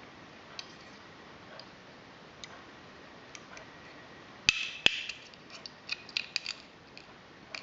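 Small, sharp plastic clicks and taps from a View-Master Model D viewer's lens assembly being handled while its lenses are pushed out. A few faint ticks come first, then two sharp clicks a little past halfway, followed by a quick run of smaller clicks.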